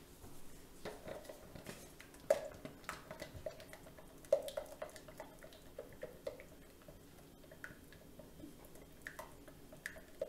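Faint, irregular clicks and taps of a utensil against a small container, as titanium dioxide is stirred into a small portion of soap batter.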